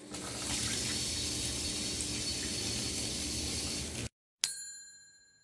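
Water running from a waterfall bath tap into the tub as a steady rush, cut off abruptly about four seconds in. Then a single bright, bell-like ding that rings and fades.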